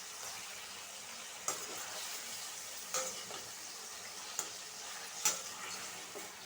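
Chicken pieces sizzling as they fry in oil in a kadai, with a steady hiss. A spatula knocks against the pan four times as the pieces are stirred.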